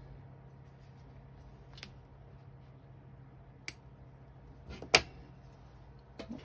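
Small scissors snipping stray yarn fuzz off a crocheted cotton coaster: a few sharp, separate clicks a second or two apart, the loudest about five seconds in, over a faint low hum.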